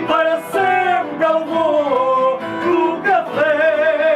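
Portuguese fado sung to plucked guitar accompaniment. The voice sings a sliding melody and holds a long note with wide vibrato near the end.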